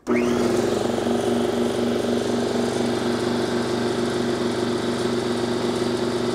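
Metabo HPT EC1315S "The Tank" 8-gallon, 1.5 hp oil-free air compressor starting up right at the outset and then running steadily, a constant pitched motor-and-pump hum under a broad rushing noise. It measures about 75 dB nearby, quite quiet for a machine of its size.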